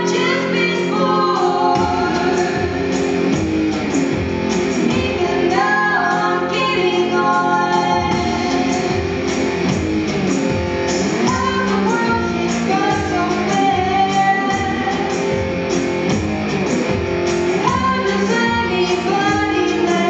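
Two women singing live in a large hall, over a steady rhythmic guitar accompaniment.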